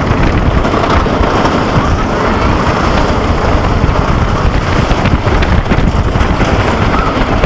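Roller coaster in motion: steady loud wind rushing over the head-mounted microphone, over the low rumble of the train on its track.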